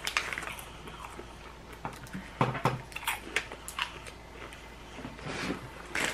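Foil wrapper of a small chocolate gelt coin crinkling as it is peeled off by hand, in scattered light crackles.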